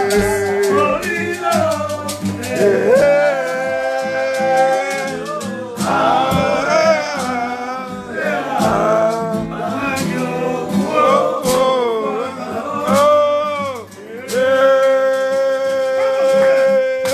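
Live singing to a strummed acoustic guitar, the voice holding one long note near the end.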